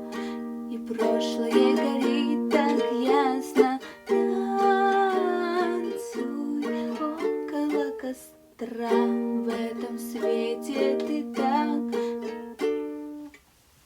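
Ukulele strumming the song's closing chords, with a short pause about two-thirds of the way through; the last chord dies away just before the end.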